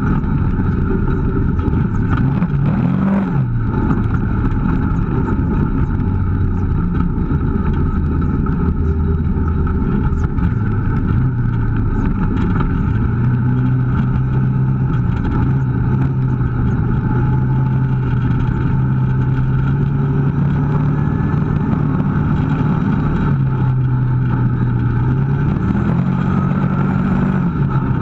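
Kawasaki KVF650 ATV's V-twin engine running steadily while being ridden, its pitch stepping up and down with the throttle, with brief revs about three seconds in and again near the end.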